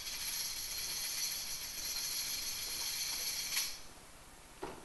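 Jingling percussion shaken steadily in a high shimmer for about three and a half seconds, then stopping sharply, followed near the end by a single soft knock.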